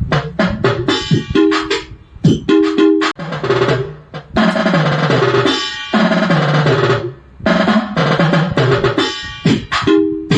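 Roland SPD-20 Pro digital percussion pad playing drum and percussion sounds in quick rhythmic runs of sharp hits, mixed with pitched tones that ring on, with short breaks between phrases.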